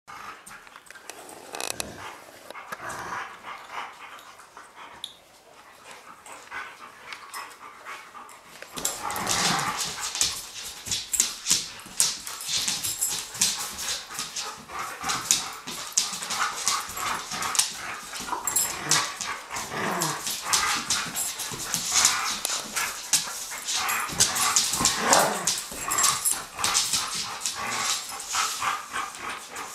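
Two dogs playing tug-of-war over a rope toy, growling and barking, with claws clicking and scrabbling on a hard floor. The play gets louder and busier about nine seconds in.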